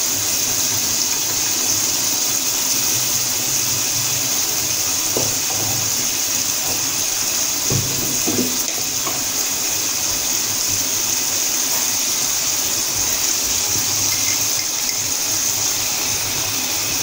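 Sauce with meatballs and minced meat simmering in a steel wok over a gas burner: a steady, even hiss.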